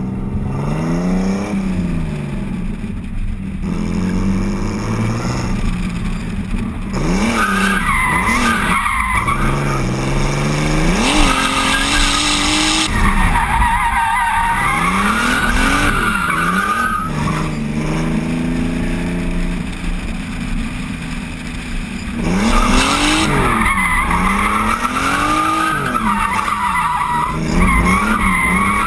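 BMW E36 drift car's engine revving up and down over and over as it slides through the course, with the tyres squealing in long stretches, first for about ten seconds starting a quarter of the way in and again over the last quarter.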